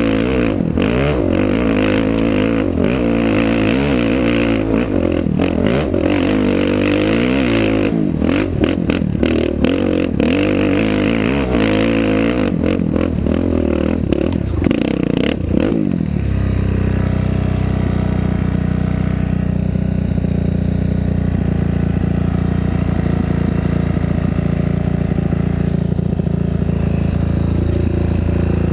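Off-road race vehicle's engine revving up and down, with clatter and knocks from the rough ride. About halfway through, the engine settles to a steady note and the rattling mostly stops.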